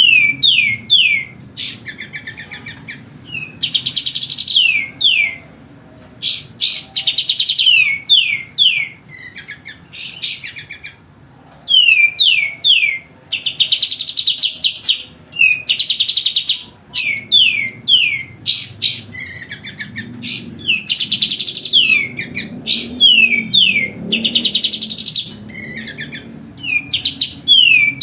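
Kapas tembak bulbul singing busily without pause: rapid clusters of sharp, falling chirps, each phrase a run of quick notes repeated with only short gaps. It is a lively, emotional call used as a lure to get other birds singing.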